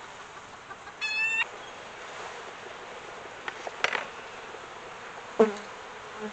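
Honeybees humming from an opened package. A single honking bird call comes about a second in, and a metal hive tool makes several sharp knocks and taps on the wooden package box in the second half, the last one the loudest.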